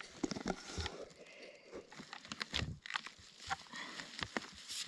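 Long-handled loppers cutting through a goat kid's ribs to open the chest, giving a series of irregular crunching snaps and cracks.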